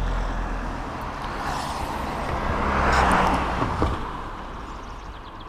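A vehicle passing by on the road, its tyre and engine noise growing to a peak about three seconds in and then fading away.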